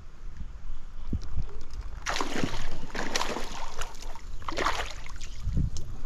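Water splashing and sloshing hard and irregularly, starting about two seconds in: a hooked brown trout thrashing at the surface of the stream.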